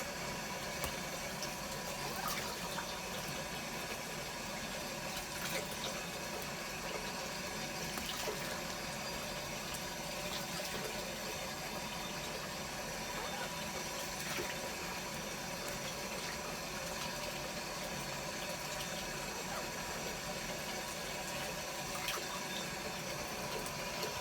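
Shower water running steadily, a continuous spray with a few brief sharp sounds over it.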